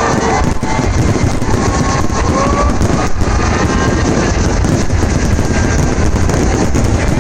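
Fireworks display: a continuous low rumble of distant bursts with a few sharper bangs, and wind buffeting the microphone.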